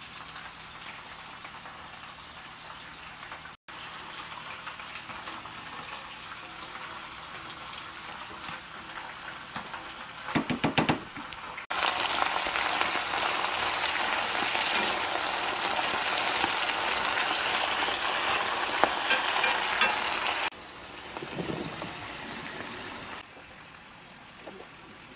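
Chopped bok choy sizzling in a hot pan: a loud frying hiss with crackles for about eight seconds in the middle that cuts off suddenly. Before it there is a softer steady hiss and a few knocks, and after it quieter handling sounds.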